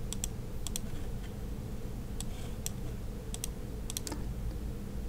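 Computer mouse clicks, mostly in quick press-and-release pairs, half a dozen times over a faint steady low hum.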